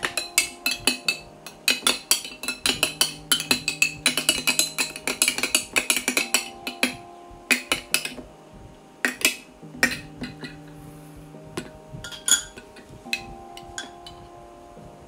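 A metal spoon stirring in a glass jar of seeds, clinking rapidly against the glass for about seven seconds, then a few scattered clinks. Soft background music with sustained tones plays underneath.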